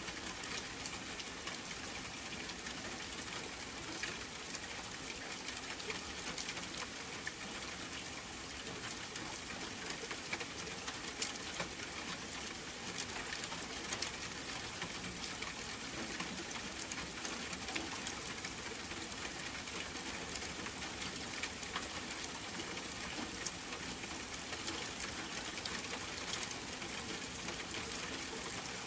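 Steady rain falling, an even hiss sprinkled with many small sharp ticks of individual drops.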